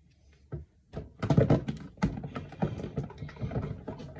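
Plastic fidget toys being handled: a quick run of clicks and knocks, thickest in the first half.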